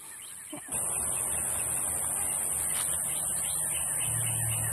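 Outdoor woodland ambience that cuts in abruptly less than a second in: a steady high-pitched insect-like buzz over a hiss and a low rumble like distant traffic.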